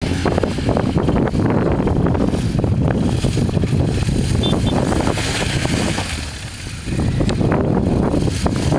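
Heavy wind buffeting on the microphone over a large adventure motorcycle's engine as it climbs a loose rocky track slowly. The buffeting eases for about a second, six seconds in.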